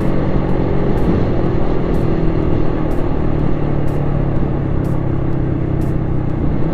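Motorcycle engine running steadily while riding at road speed, under a constant rush of wind on the microphone, with the rider's jacket flapping noisily behind.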